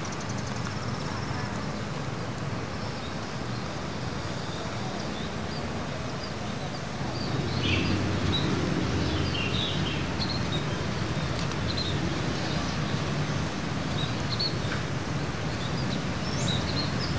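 Outdoor ambience: a steady low rumble, louder from about seven seconds in, with birds chirping in short scattered calls over it in the second half.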